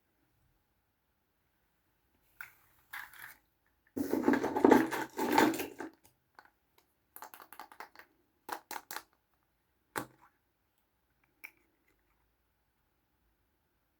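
Small plastic toys and their packaging handled by hand: a couple of clicks, then a dense rustling and crunching about four to six seconds in, the loudest part, followed by scattered light clicks and taps.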